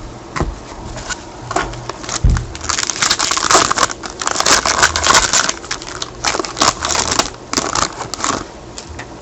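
A foil trading-card pack being torn open and crinkled by hand: a dense, crackly rustle running for several seconds, after a few light taps and a soft thump in the first couple of seconds.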